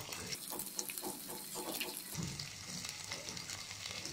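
Freshly added chopped onion sizzling in hot mustard oil in a kadhai, a steady frying hiss with small crackles.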